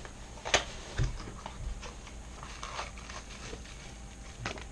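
Small plastic packaging, a bubble-wrap pouch, being handled by hand. A sharp click about half a second in and a low thump at about one second are followed by light crinkling and small ticks, with another click near the end.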